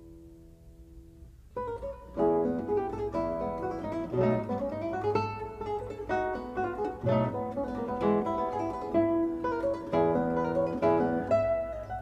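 Background music of plucked acoustic guitar, with quick picked notes and chords. It comes in about a second and a half in, after a short quiet lull.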